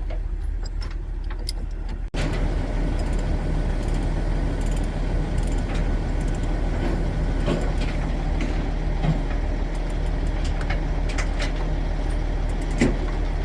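Engine of heavy paving equipment running steadily at a constant speed. About two seconds in, the sound cuts out for an instant, then the engine resumes a little louder.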